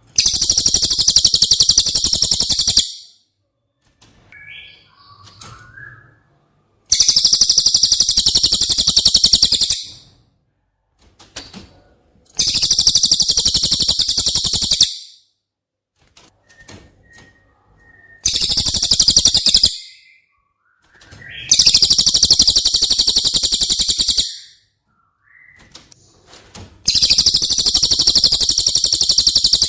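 Recorded cililin song: loud, fast, high-pitched buzzing trills, each lasting two to three seconds and repeated six times with short pauses, with faint softer chirps in between.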